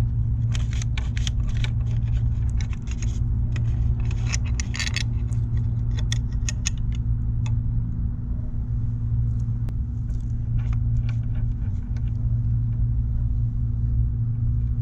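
Light metallic clicks and clinks of hand tools and parts at a motorcycle's front brake caliper, thickest in the first half, over a steady low hum.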